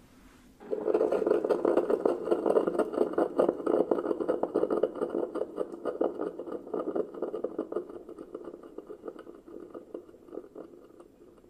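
Ninja Hot and Cold Brewed System (CP307) coffee maker starting a single-cup brew. A very loud, dense crackling noise begins about a second in and slowly eases off toward the end, the loud opening stage of the brew cycle.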